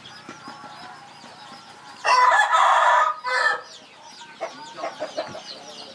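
A rooster crows once, a loud call of about a second with a short tail after it, then a few quieter calls, over a steady background of small birds chirping.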